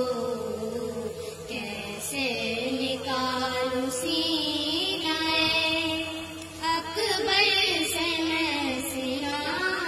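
Two girls' voices chanting a noha, a mourning lament for Ali Akbar, together in long held phrases, sung into a handheld karaoke microphone.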